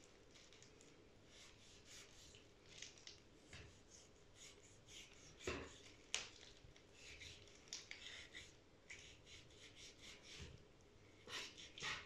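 Faint, repeated strokes of a kitchen knife slicing through raw beef on a wooden cutting board, with a few louder knocks about halfway through and near the end.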